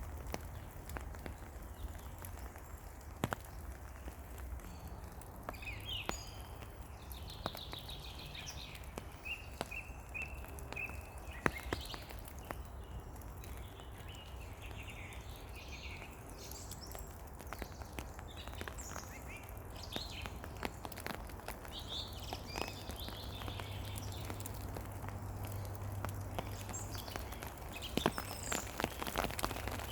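Rain in a spring forest, with drops falling in irregular ticks and taps on leaves and ground over a steady low rumble. Songbirds chirp and sing through much of it.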